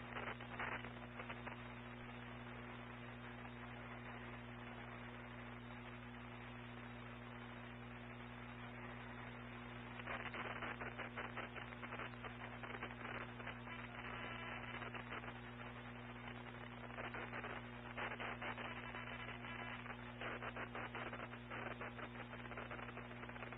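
Low electrical hum with steady hiss on a narrow, low-quality audio feed, with bouts of crackling static about ten seconds in and again near the end.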